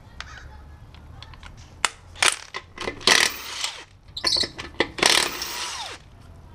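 DeWalt cordless impact wrench with a 21 mm socket hammering a truck wheel's lug nuts loose in several short bursts from about two seconds in. The last burst is longest, and its motor pitch falls away as the trigger is released.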